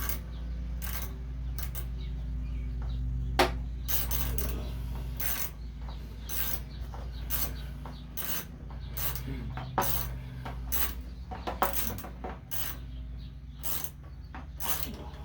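Hand ratchet tightening small bolts: short runs of pawl clicks, roughly one stroke a second, over a steady low hum.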